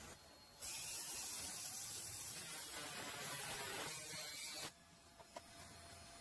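Plywood edge being sanded on a small homemade motor-driven sander: a steady, hissing scratch that starts about half a second in and cuts off abruptly after about four seconds, followed by a faint click.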